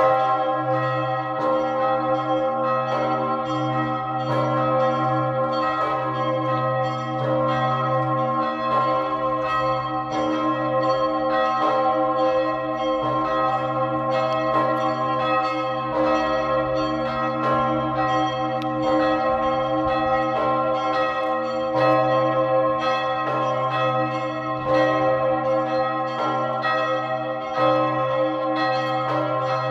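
Augustin, the great church bell of the White Tower in Hradec Králové and the third-largest bell in the Czech Republic, ringing continuously. It strikes again and again, its deep hum and many overtones sounding on between strokes.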